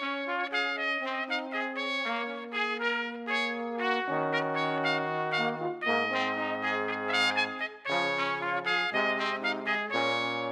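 Brass band playing a tune of quick, changing notes, trumpet and trombone to the fore. A low tuba bass line comes in about four seconds in.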